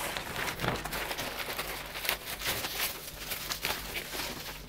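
Packaging being handled: a run of irregular soft crackles and rustles.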